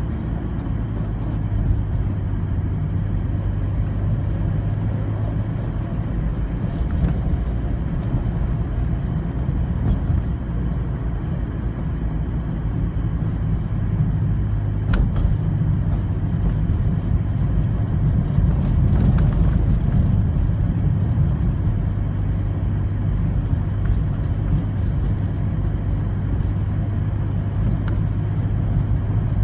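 Interior noise of a moving car: a steady low engine and road hum. A single sharp click comes about halfway through, and the hum swells a little soon after.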